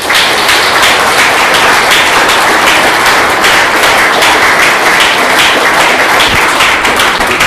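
Audience applauding: many people clapping, loud and steady.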